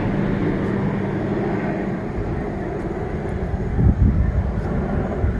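Wind buffeting the microphone: a steady rumbling rush with a few low thumps about four seconds in and near the end. A low steady hum fades out over the first couple of seconds.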